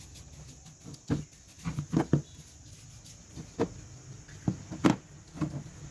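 Irregular light knocks and clicks as a paintbrush works finish onto a turned wooden fishing reel and the reel is handled on a tabletop, about eight taps spread unevenly.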